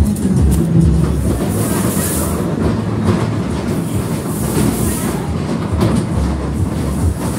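Fairground witch-train ride cars rumbling and clattering along their rails, with two bursts of hiss about two and four and a half seconds in.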